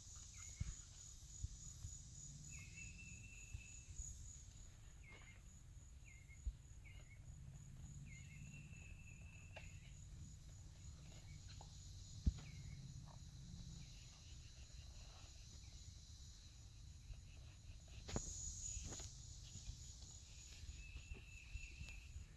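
Insects chirring steadily in a high, finely pulsing drone. Scattered soft clicks and knocks come from saddle tack being handled, and a sharp knock about twelve seconds in is the loudest sound.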